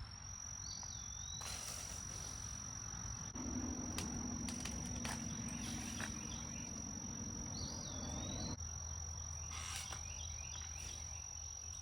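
Insects singing in one steady, high-pitched drone, with two short whistled glides about a second in and near the end. A low hum comes in partway through, and there are a few faint clicks.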